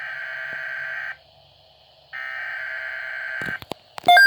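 Weather radio alert data tones: the harsh buzzing bursts of an emergency alert digital header, two bursts with a short gap between them. Near the end the receiver's own alarm cuts in, a loud beep pulsing about four times a second.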